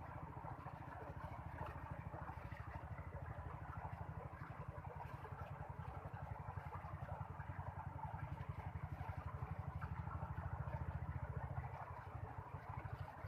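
A small engine running steadily with a fast, even beat, a little louder about ten seconds in.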